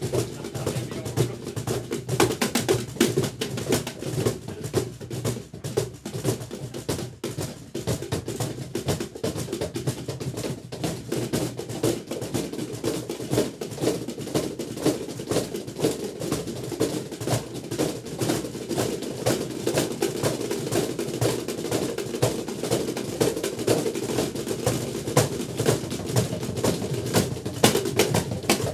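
Two cajons played by hand together, a full-size cajon and a small lap-held box cajon, in a fast continuous groove of dense slaps and taps.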